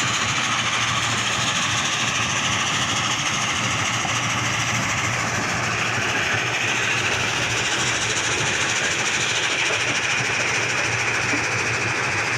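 Bull backhoe loader's diesel engine running steadily, a constant low hum under a dense hiss.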